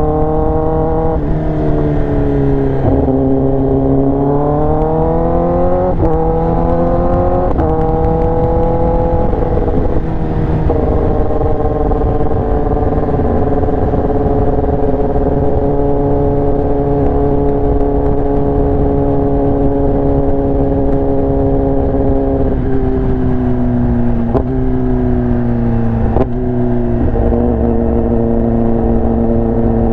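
Kawasaki ZX-10R inline-four running through an SC-Project exhaust while riding. Engine pitch climbs and breaks sharply several times in the first ten seconds, as with gear changes. It then holds steady through the middle and steps down a few times near the end.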